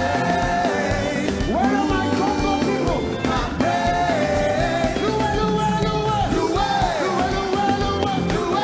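Live praise music: singers holding long, gliding notes over a full band with a steady beat.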